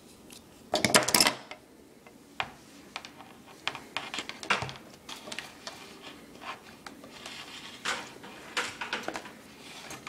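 Insulated wire being handled and pulled through a homemade wire-stripping machine's blade and aluminium jig: a burst of clatter about a second in, then scattered clicks and scraping as the wire slides through.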